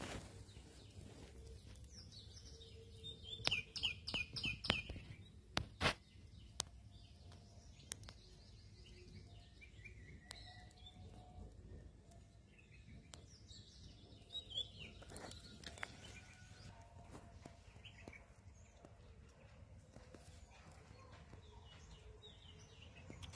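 Birds chirping, with a quick run of short repeated high notes about three to five seconds in and scattered calls after. A few sharp clicks come in the first six seconds.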